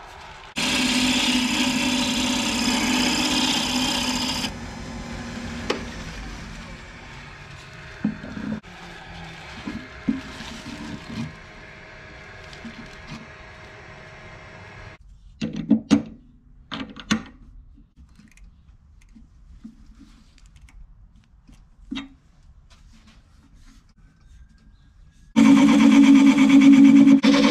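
A wood lathe motor running steadily, spinning a wooden bowl blank; it starts suddenly about two seconds before the end, and a similar steady run fills the first few seconds. In between there are a few sharp wooden knocks and clatter as the blank's pieces are handled and fitted.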